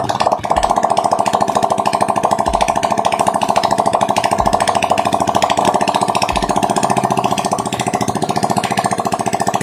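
Honda XRM125's single-cylinder four-stroke engine running steadily with a fast, even beat, freshly overhauled and test-started in its frame.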